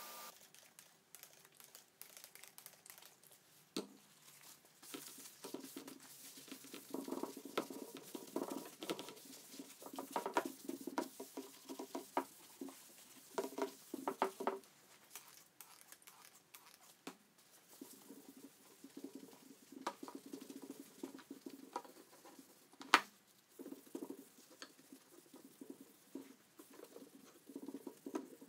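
Irregular scratching and rubbing strokes with scattered light clicks and one sharper click about 23 seconds in.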